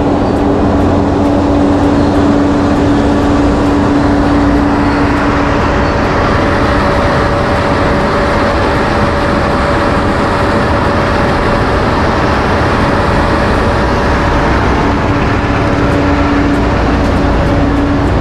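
Motor scooter being ridden through city traffic, heard from the rider's seat: a steady engine hum under a loud, even rush of wind and road noise. The hum is strongest in the first few seconds, fades into the rush, and comes back near the end.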